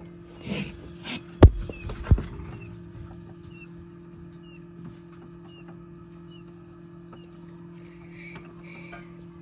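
Coturnix quail chicks peeping: short high chirps repeating about twice a second over a steady low hum. Two sharp knocks stand out about a second and a half and two seconds in.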